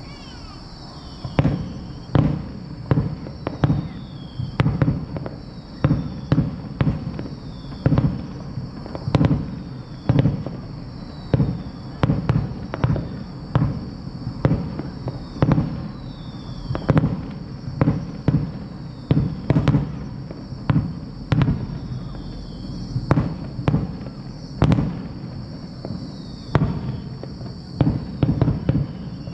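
Aerial fireworks shells bursting in quick succession, a sharp bang every second or so, with a few short falling whistles among them.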